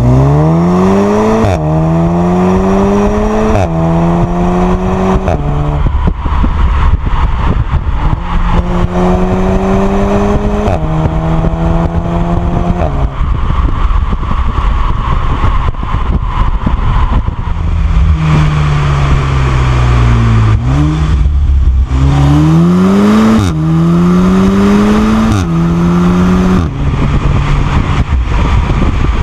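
The 2015 VW Golf 7 R's turbocharged 2.0 TSI four-cylinder pulls hard three times. Each time the engine note rises and drops sharply at quick DSG upshifts, two to four per run. Between runs the car lifts off and coasts with a falling engine note, then cruises more quietly.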